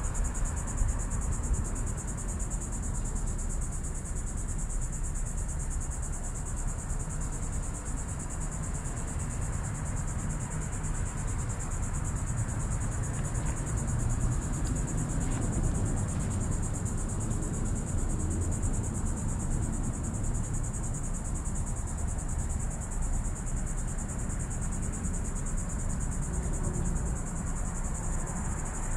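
Steady, unbroken high-pitched chorus of insects, with a constant low rumble underneath.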